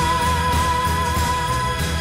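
Background song with a steady beat and a long, wavering held note that ends near the close.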